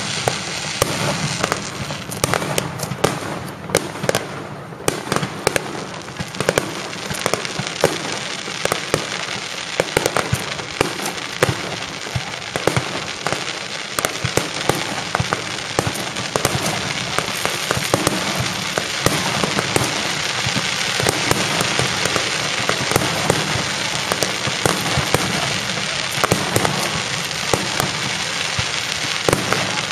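Fireworks crackling and popping without a break: a dense stream of sharp pops over a steady hiss.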